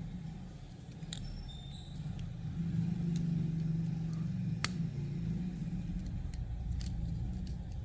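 Low rumble that swells a couple of seconds in and then holds steady, with a few faint light clicks of small parts being handled as rubber tires are pushed onto a die-cast toy car.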